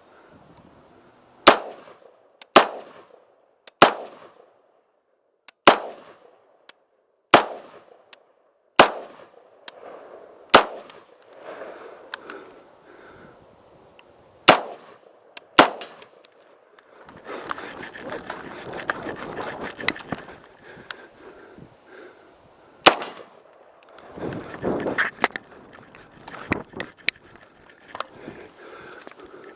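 Single shots from a short-barreled AR-15 rifle, about a dozen, mostly one to two seconds apart. Around the middle there is a longer pause filled with rustling and scuffing movement.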